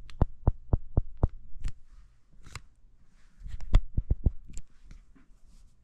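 A run of light taps or knocks, about four a second for the first second and a half, then a few scattered ones and a quick cluster of about five some three and a half seconds in.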